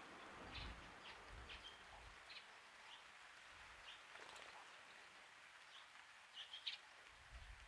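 Small birds chirping faintly: short, scattered chirps, a couple of them a little louder near the end.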